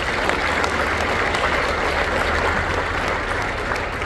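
A large congregation applauding, a dense, steady clapping that starts to thin out near the end.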